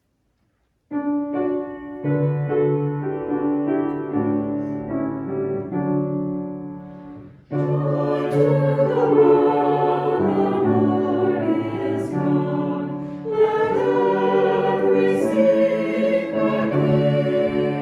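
Sacred choral music: sustained piano or keyboard chords begin about a second in, and a choir singing with accompaniment takes over from about seven seconds in.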